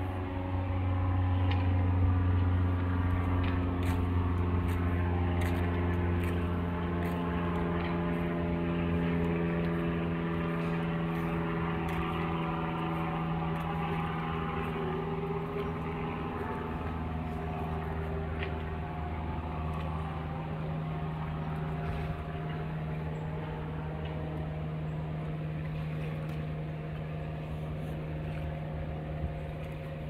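An engine running steadily, a low hum with several higher overtones that waver a little and fade over the second half while the whole sound slowly grows quieter.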